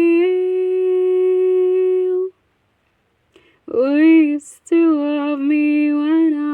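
A solo voice humming without words: one long steady note, then after a pause of about a second and a half a wavering melody that slides between notes.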